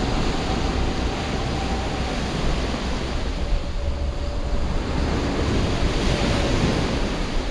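Steady wash of sea surf on a pebble shore, with wind rumbling on the microphone.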